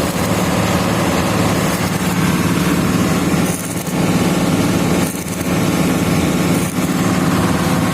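Excavator diesel engines running steadily, a constant low drone that dips briefly about three and a half seconds in and again about five seconds in.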